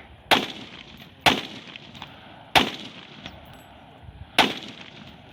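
Four gunshots from a firearm, fired a second or two apart, each followed by a short echo tail.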